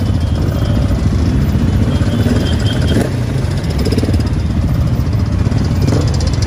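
Many motorcycle engines running at low revs as a pack of bikes rolls along slowly, a steady close rumble with a rapid, even beat.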